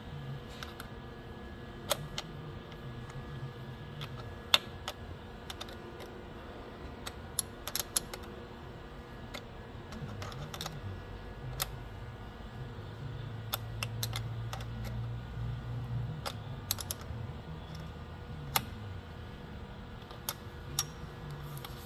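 Irregular light clicks and taps of parts being handled and fitted together, over a low hum.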